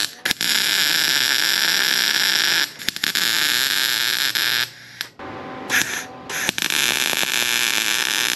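MIG wire-feed welding arc crackling and hissing steadily on steel, in several runs of a few seconds each with short breaks where the trigger is released.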